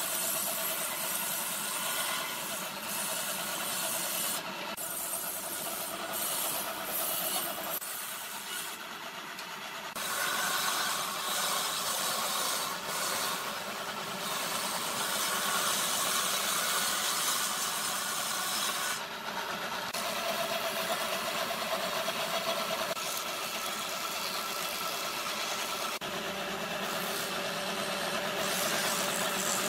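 Woodworking machine's circular saw running steadily and ripping thin strips lengthwise off a wooden board, with a dense hiss of blade cutting wood over the motor's steady drone. Near the end the machine's planer/thicknesser runs as a thin strip is fed through it.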